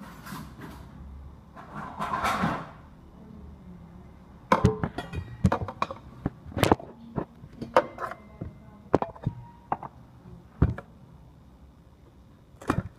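Irregular sharp clicks and knocks, some with a short ring, from a knife cutting a banana on a hard surface, after a few seconds of rustling as the phone is moved.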